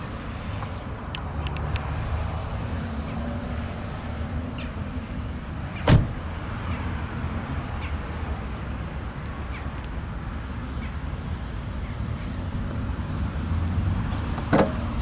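A BMW E46 3 Series' driver's door being shut with a single loud thump about six seconds in, then the sharper click of a rear door's handle and latch being pulled open near the end, over steady wind on the microphone.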